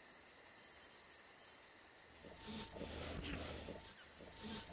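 Crickets trilling in a steady high tone. From about two seconds in, low, irregular snuffling and chewing sounds come from a sloth bear feeding on fallen tendu fruit.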